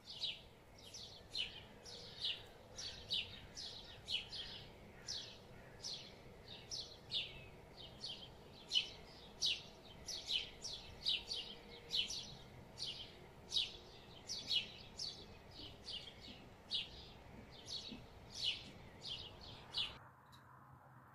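A bird chirping over and over: short, high calls, each dropping in pitch, about two a second. The chirps stop suddenly near the end.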